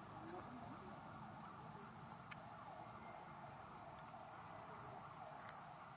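Steady high-pitched drone of insects with a dense chirring underneath, and a single faint click near the end.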